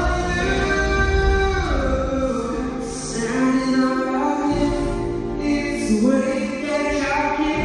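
A pop band playing a song live with sung vocals over a steady bass, the singers holding long notes that slide between pitches.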